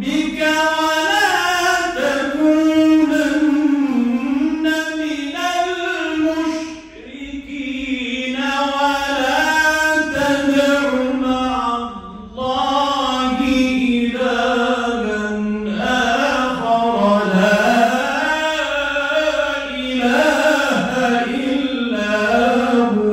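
A man reciting the Qur'an in the melodic mujawwad style into a handheld microphone: long, ornamented phrases on held notes, with a couple of short breaths between them. The recitation stops just before the end.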